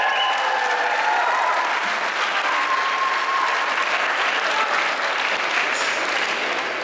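Audience applauding steadily as a folk dance ends, with the last notes of the dance music dying away in the first second.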